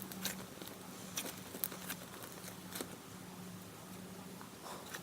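Butter slime made with Daiso clay being squeezed and stretched by hand: scattered soft, sticky clicks and small pops, over a faint steady hum.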